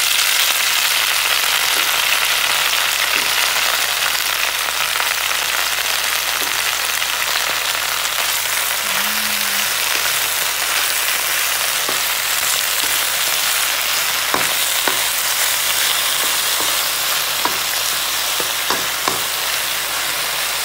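Wet spinach leaves frying in hot olive oil in a pan: a loud, steady sizzle that eases a little as the leaves wilt. In the second half, a wooden spatula clicks and scrapes against the pan a few times as the leaves are stirred.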